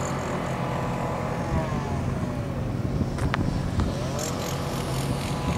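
Steady low engine hum with vehicle noise, and a slow pitch glide up and down like a passing vehicle; a single sharp click about three seconds in.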